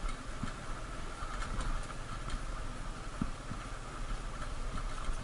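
Motorcycle ridden over a rough gravel road: steady engine noise with irregular clicks and knocks from the bumpy ride.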